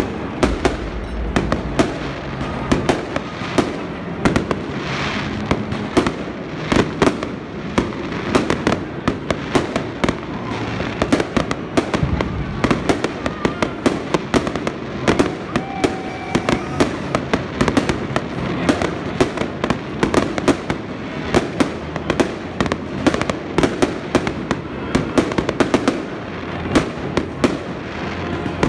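New Year's fireworks going off in a dense, unbroken barrage of sharp bangs, several a second.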